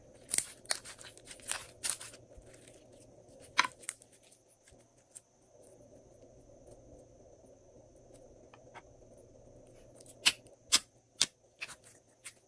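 Glossy slime being pressed and mixed by hand, giving sharp, crisp clicks and pops: a cluster in the first two seconds, one alone midway, and a quick run of about six near the end.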